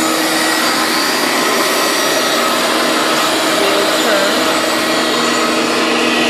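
Clarke 576A CarpetMaster industrial carpet cleaner's motor running steadily, an even rushing noise with a few constant tones in it.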